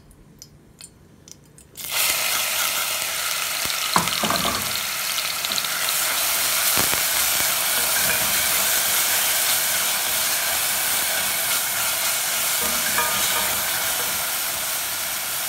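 Minced onion hitting hot ghee in a stainless steel pot starts sizzling loudly about two seconds in, then fries steadily while a wooden spoon stirs it. The spoon knocks against the pot twice.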